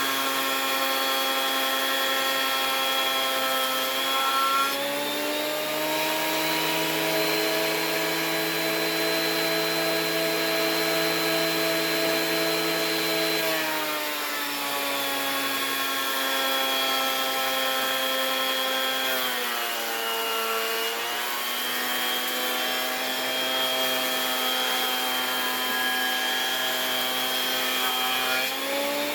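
Electric sander running on oak, a steady motor hum whose pitch sags and recovers several times, dipping lowest about two-thirds of the way through.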